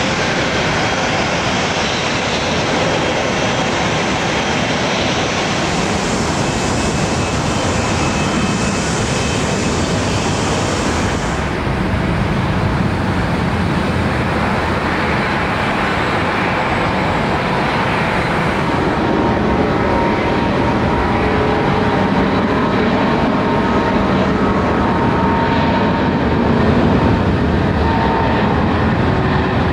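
Airbus A380 jet engines running steadily as the airliner taxis; in the last third a faint whining tone comes in and the sound grows slightly louder as thrust builds for the takeoff roll.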